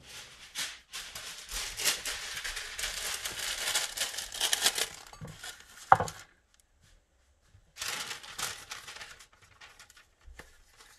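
Crinkling and rustling for about five seconds. Then a single clunk with a brief ring as a ceramic soup bowl is set down on a wooden board. More crinkling follows near the end.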